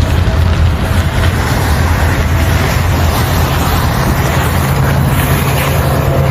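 A large engine running steadily, a deep low rumble with a noisy hiss over it.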